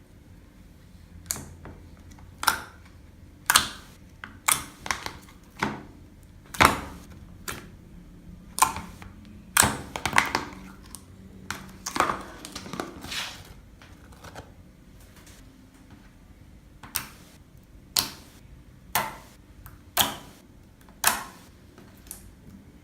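Slime being pressed and poked by hand, giving sharp wet clicks and pops, roughly one a second, with a quieter stretch in the middle.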